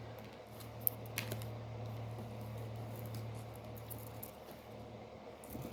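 A steady low hum with a few faint, light clicks about a second in.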